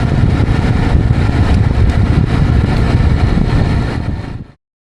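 A vehicle engine running with a loud low rumble, fading slightly and then cutting off abruptly about four and a half seconds in.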